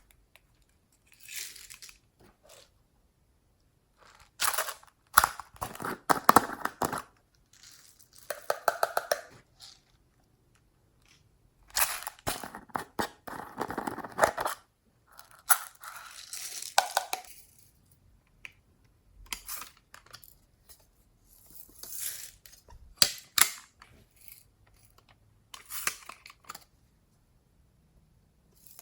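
Slime being kneaded and stretched by hand: sticky crackling and popping in bursts, with short silent pauses between them.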